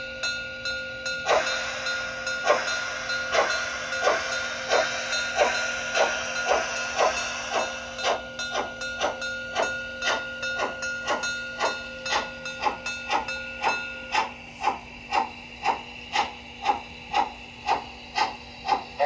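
Steam sound module of an LGB HSB Mallet G-scale locomotive: steady chuffing over a hiss, the chuffs quickening from under one and a half a second to about two and a half a second as the engine gathers speed. The hiss is heavy at first and thins out about halfway through.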